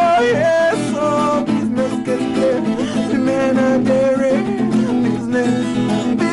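Music: a song with guitar and a sliding melody line over steady accompaniment.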